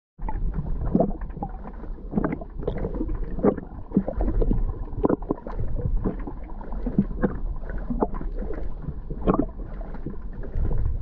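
Muffled water sloshing and splashing around an underwater camera: irregular swishes over a steady low rumble.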